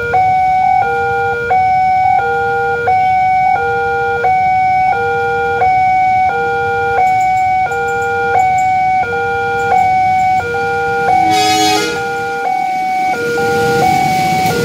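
Railway level-crossing warning alarm sounding its electronic two-tone signal, alternating between a lower and a higher note about every three-quarters of a second, the sign that a train is approaching and the barrier is closed. About eleven seconds in a brief horn-like blast cuts across it, and near the end the rumble of the approaching train rises under the alarm.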